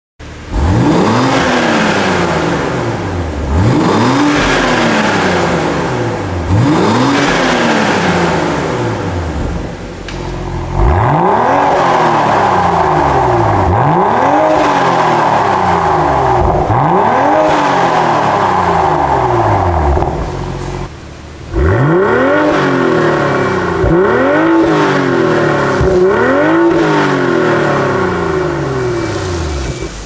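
BMW M340i's B58 3.0-litre turbocharged inline-six, breathing through a Fi Exhaust valvetronic cat-back, revved repeatedly while standing still: about eleven quick blips, each rising and falling back. The exhaust valves are open in sport mode around the middle of the run.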